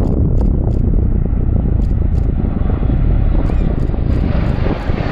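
Red Arrows BAE Hawk jets' engines, a steady loud rumble in the open air, with a rising hiss near the end as the jets come closer.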